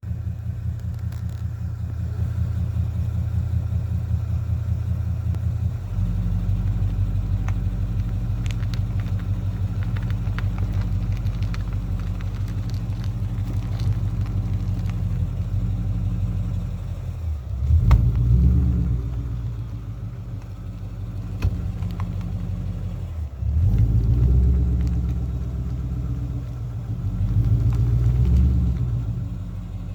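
2015 Mustang GT's 5.0-litre V8 running at low speed while reversing, rising in three surges in the second half, with scattered sharp ticks over the engine hum; this is the noise the car makes when backing up.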